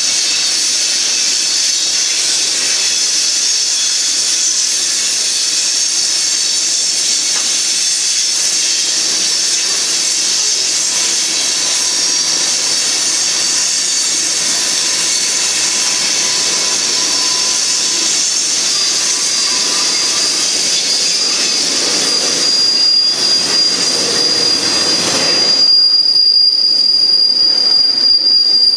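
Freight train cars rolling past, steel wheels on the rails, with a steady high-pitched wheel squeal. One squealing tone grows stronger in the second half, and the sound gets a little louder and rougher near the end.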